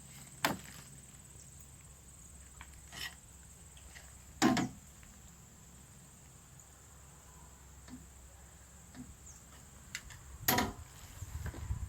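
Scattered knocks and clunks of handling gear on the portable sawmill while its deck is checked for level. Three louder knocks come near the start, in the middle and near the end, with light ticks between them.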